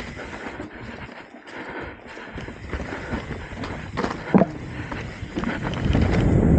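Trek Top Fuel 8 full-suspension mountain bike riding down a rocky dirt trail: tyres crunching over dirt and stones while the bike rattles, with a sharp knock about four seconds in. Near the end a low rumble of wind on the microphone grows louder.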